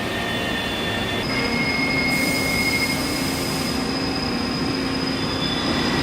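Steady machinery running noise with several high whining tones; about a second in the tones shift and a new, higher whine sets in.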